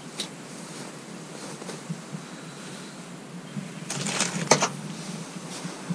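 Light clicks and rustles of handling, with a cluster of sharper clicks about four seconds in, over a low steady background hum.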